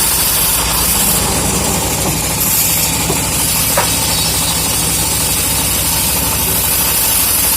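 Engine of a homemade log sawmill running steadily, with a constant hiss over a low hum.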